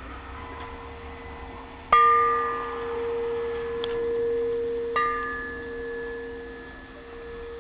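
Closing bars of a song: a bell-like chime is struck twice, about three seconds apart, each ringing out over a steady held tone.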